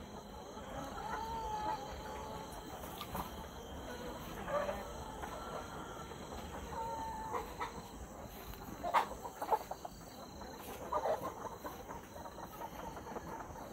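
A large flock of brown hens clucking and calling, a steady murmur of many birds with a few louder single calls standing out, the loudest about nine and eleven seconds in.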